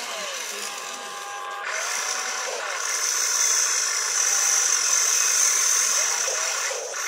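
Electric motors of an RC excavator whining as it swings the upper body and works the boom and bucket. The whine changes pitch as the motors start and stop, and is loudest and highest while the bucket digs in the second half.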